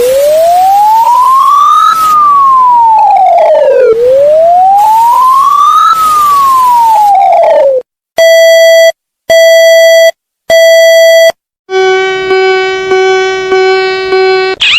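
Emergency alert alarm tones: a siren wails up and down twice, then three long electronic beeps sound, then a steady buzzing tone holds for about three seconds.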